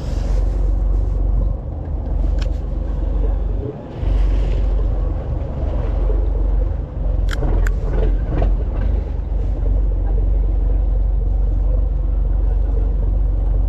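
Boat engine running with a steady low rumble, and two sharp clicks a little past the middle.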